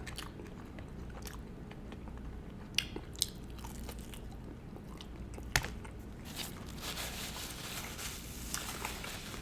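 Chewing and crunching of crispy fried chicken, with a few sharp crunches about three seconds in and another a couple of seconds later, then softer chewing.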